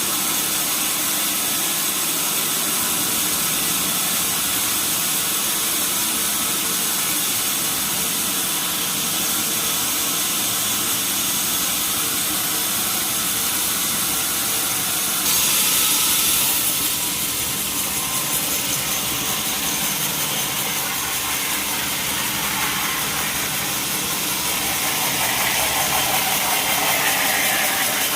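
Sawmill wheel saw and its drive engine running steadily, with a brief hiss about halfway through and the sound swelling near the end.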